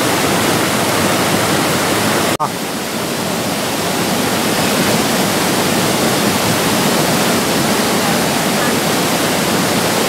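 Steady rush of falling water from a waterfall and its river, with a brief dropout about two and a half seconds in.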